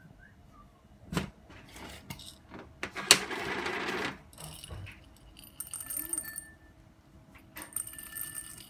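Household clatter: a sharp click, then a loud rustling rush lasting about a second, followed by two spells of bright metallic jingling and clinking.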